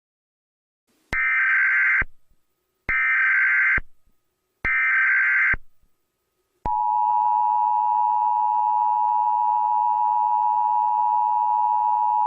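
Emergency Alert System SAME header: three short bursts of screeching digital data tones, each just under a second long with brief gaps between. These are followed, about six and a half seconds in, by the steady two-tone EAS attention signal, which holds without a break. Together they signal that an emergency broadcast message is about to start.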